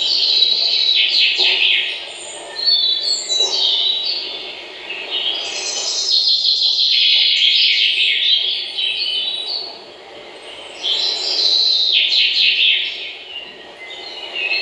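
A flock of small birds chirping together, many rapid overlapping chirps coming in bouts of a few seconds, each broken by a brief lull.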